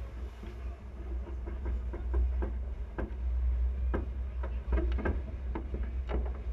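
A racing yacht under sail, with wind rumbling on the microphone and irregular sharp clicks and knocks from the deck gear, most of them around the middle of the stretch.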